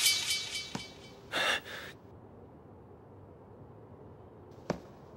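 A ringing clatter fading away over the first second, then a short sharp gasp about a second and a half in; after that only a low background with a couple of faint clicks near the end.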